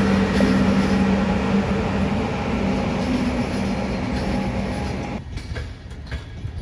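Train running: a loud rumble with a steady low hum, which drops away suddenly about five seconds in and leaves quieter scattered clicks.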